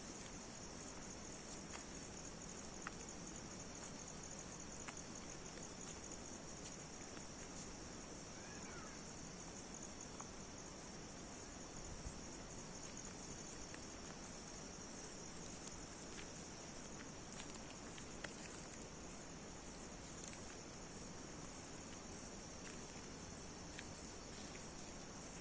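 Crickets chirring in a steady high-pitched chorus, with a few faint clicks scattered through it.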